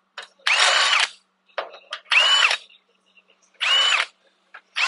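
Cordless drill with a half-inch bit drilling out the side holes in a steel truck frame in short bursts of about half a second, enlarging them for half-inch bolts. Its whine rises at the start of each burst and falls at the end; three bursts, with a fourth starting near the end.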